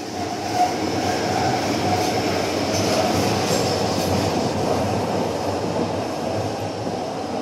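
Train running along the rails: a steady rumble with faint wheel squeal around three seconds in, fading up at the start.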